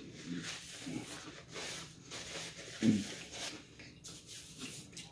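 Close eating noises: chewing and heavy breathing through the nose, with a paper napkin rustling against hands. A short low thud or grunt stands out about three seconds in.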